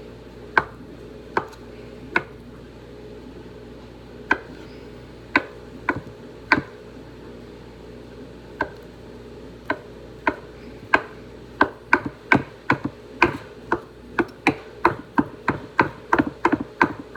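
Kitchen knife chopping on a cutting board: a few scattered single cuts at first, then a steady run of about two chops a second from about halfway through.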